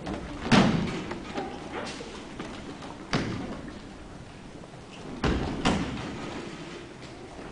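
Four heavy thuds of bodies landing on dojo mats in aikido breakfalls: one about half a second in, one about three seconds in, and two in quick succession near five seconds.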